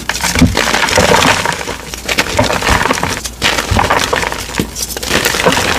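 Blocks of dyed gym chalk being crushed, a dense run of crunching and crackling with sharper snaps as pieces break apart.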